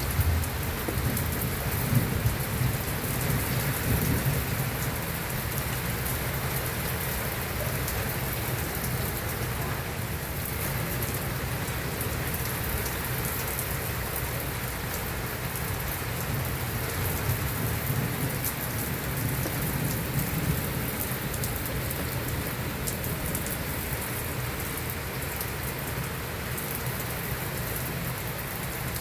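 Heavy rain falling steadily and pattering on surfaces, with a low rumble underneath that swells a little in the first few seconds.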